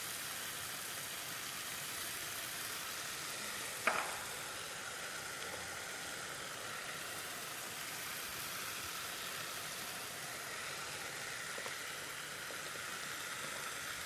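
Chopped vegetables with onion, garlic and tomato paste frying in oil in a pot over a gas flame, a steady sizzle. A single short click comes about four seconds in.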